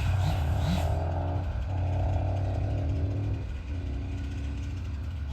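Road traffic passing on a highway: a vehicle's hiss swells and fades in the first second, with steady engine tones holding for a few seconds, over a steady low engine hum.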